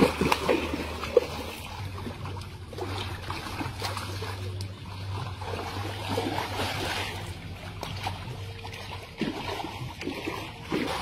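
Water splashing as fish thrash in a net being hauled through a shallow pond, with a few loud splashes in the first second and lighter sloshing and dripping after, over a low steady hum.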